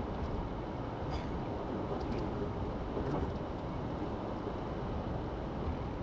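Steady road noise inside a moving car: a low rumble of tyres and engine at cruising speed.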